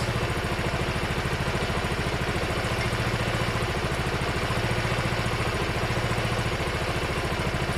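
Honda Varadero 125's V-twin engine idling steadily with an even exhaust beat, its carburettor air screws being set for a better idle.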